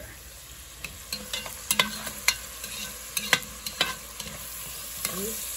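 Diced vegetables sizzling steadily in an enameled cast-iron Dutch oven as a metal spoon stirs them, with sharp irregular clinks of the spoon against the pot.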